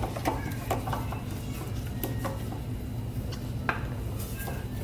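Potato slices being laid into a metal oven tray: a few scattered light clicks and knocks of food and hands against the tray, over a steady low hum.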